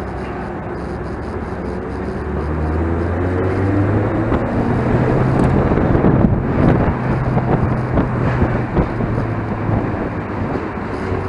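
Mazda MX-5's four-cylinder engine running hard on track, its pitch climbing about two seconds in and then holding. There is a brief rougher burst of noise about six seconds in.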